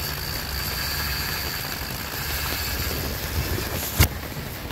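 Steady low rumble, with a single sharp knock about four seconds in as the filming phone is jostled.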